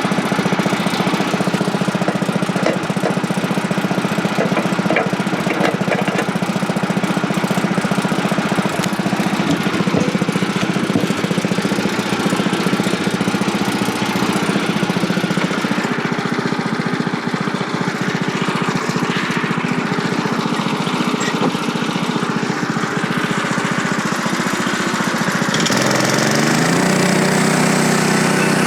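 Small gasoline engine of a portable bandsaw sawmill running steadily, then rising in pitch as it speeds up near the end.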